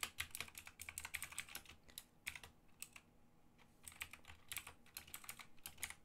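Faint computer keyboard typing: a run of quick key clicks, with a pause of about a second a little past halfway before the typing resumes.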